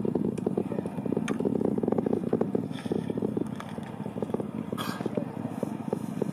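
Distant ULA Atlas V rocket's engines heard from miles away: a low rumble with dense crackling that eases off a little partway through.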